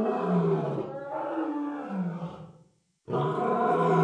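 A man's voice roaring and growling like a wild beast, in long drawn-out cries with a short silence just before the last one.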